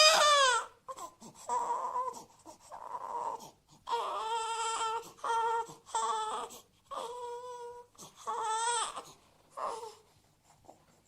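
Cartoon crying sound effect: a high-pitched voice wailing in short, wavering sobs, about one a second, fading out near the end.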